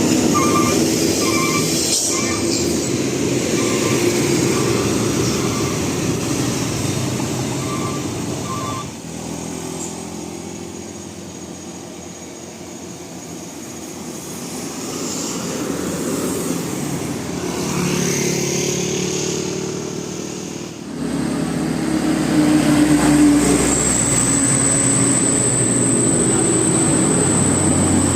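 Heavy road traffic: the steady engine rumble and road noise of large vehicles such as buses and trucks. A few short, faint beeps are heard in the first few seconds. The sound drops suddenly about nine seconds in and comes back loud about twenty-one seconds in.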